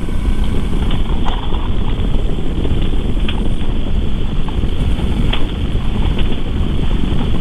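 Wind rushing over the microphone of a camera mounted on a motorcycle riding at speed through curves, with engine and road noise underneath.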